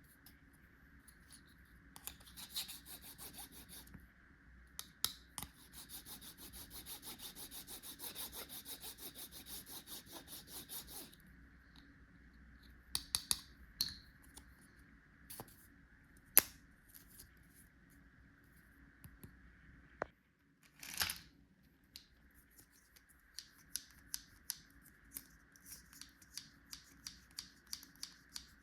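Plastic toy tools and their packaging handled up close: crinkling, a few seconds of fast, even rattling, then scattered sharp clicks and a run of light plastic clicks about two a second near the end.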